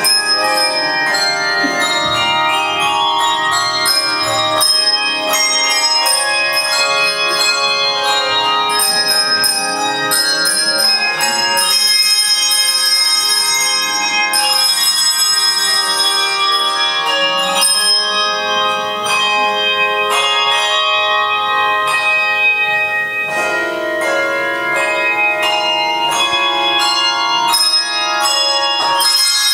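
Handbell choir playing: many handbells struck one after another, their notes ringing on and overlapping into chords.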